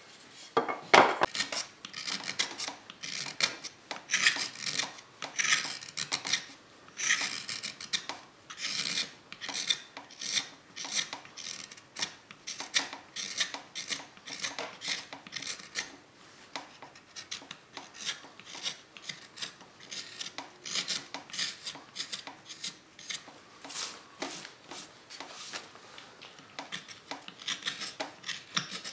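Hand carving tool paring the inside of a green (freshly cut) broadleaf maple bowl: a long, irregular series of short scraping cuts, about one to two strokes a second.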